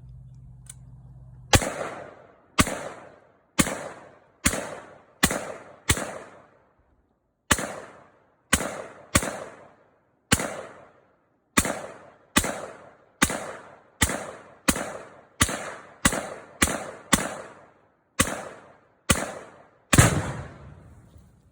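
Diamondback DB15 AR-style rifle firing a string of about two dozen semi-automatic shots, unevenly spaced at roughly one to two a second, each with a short echoing tail. The last shot, near the end, is the loudest.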